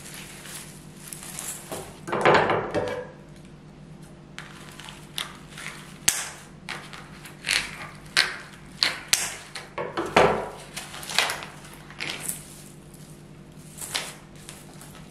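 Irregular clicks and knocks of objects being handled, with two heavier knocks, about two seconds in and about ten seconds in, over a steady low hum.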